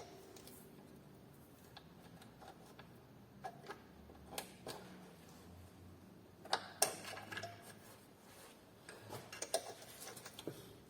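Scattered, irregular metallic clicks and ticks of hand tools: a tap and its wrench being fitted and worked in a tight spot on the car's suspension, with a few sharper clinks about four and a half, six and a half and nine to ten seconds in.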